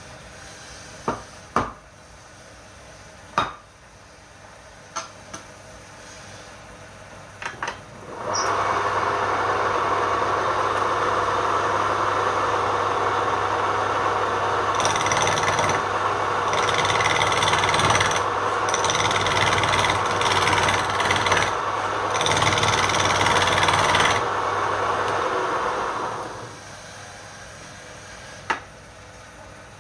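A few sharp wooden knocks, then a wood lathe starts about eight seconds in and runs with a steady hum while a tool works the spinning palm wood, giving on-and-off bright scraping noise. The lathe winds down and stops a few seconds before the end, followed by one more knock.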